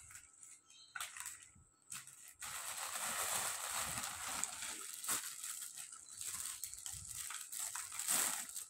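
Plastic shop bag and clear plastic clothing packaging rustling and crinkling as clothes are pulled out and handled, with sharp crackles now and then.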